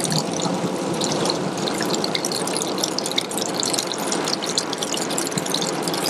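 A small trickle of water runs down a rock face and splashes onto pebbles. It makes a steady trickling, dotted with many tiny droplet splashes.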